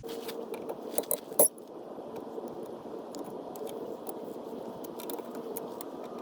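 Light metallic clinks and taps from hand tools, with one louder clank about a second and a half in, over a steady background hum.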